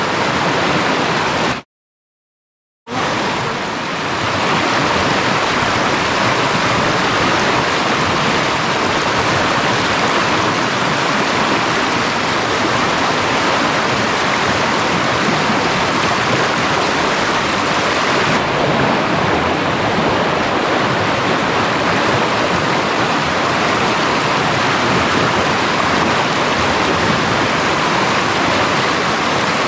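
Rushing river water: a loud, steady hiss of flowing water, with the sound cutting out completely for about a second roughly two seconds in.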